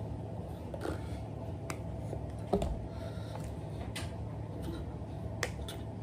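Steady low hum of room noise with a handful of brief, faint clicks and taps scattered through it, the strongest about two and a half seconds in.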